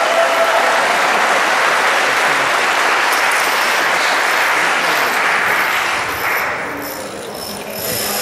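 Audience applauding, a dense steady clapping that dies away after about six seconds.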